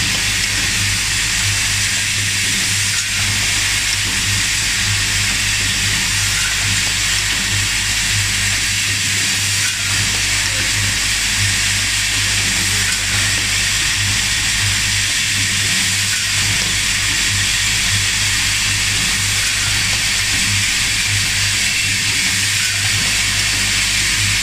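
Automatic screw-assembly machine running continuously: the steady buzz of its vibratory bowl feeders with an even hiss over it.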